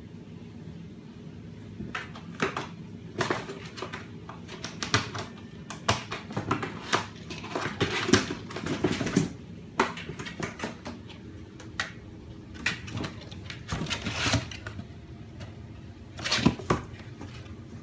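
Kittens scrabbling at a cardboard box: irregular scratches, taps and scrapes of claws and paws on the cardboard and the box shifting on the tile floor, in clusters from about two seconds in. A steady low hum runs underneath.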